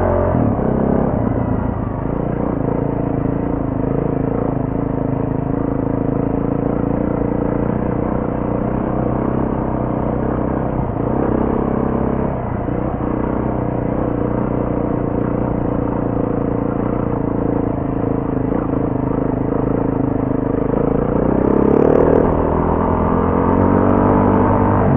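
BMW G450X's single-cylinder four-stroke engine running under way off-road, holding fairly steady revs for long stretches, with revs rising about three-quarters of the way in.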